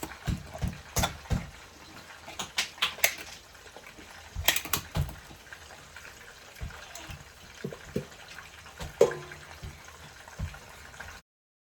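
Kitchen work: irregular clicks, knocks and clatter over a faint watery hiss, with chicken frying in oil or water running nearby. The sound cuts off abruptly near the end.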